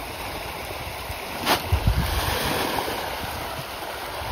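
A dense mass of fish splashing and thrashing at the surface of a pond in a feeding frenzy, a steady rush of splashing water. Wind buffets the microphone, with a sharp click and a few low thumps about a second and a half in.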